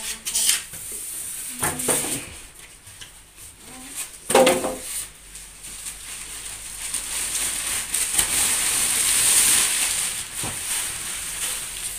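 Plastic packaging rustling and crinkling, with scrapes and knocks of cardboard box flaps and foam packing pieces, during the unboxing of an air cooler. The rustling builds to its loudest and most continuous in the second half, and there is one brief louder sound about four seconds in.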